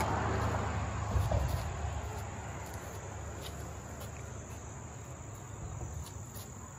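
Insects singing outdoors: a steady, high-pitched chirring, with a low rumble over the first two seconds and a short thump just over a second in.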